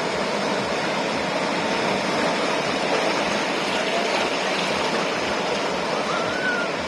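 Ocean surf washing onto the shore, a steady rush of water without distinct wave breaks.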